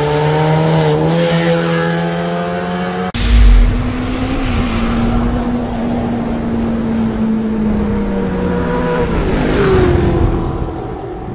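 Engine sound effect in an intro: a held engine note, a sudden loud boom about three seconds in, then a second engine note that drops in pitch twice toward the end and fades.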